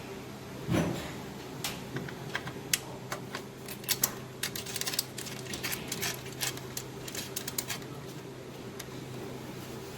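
A run of irregular light clicks and taps, like small parts being handled and fitted, over a steady low hum. There is a single thump about a second in.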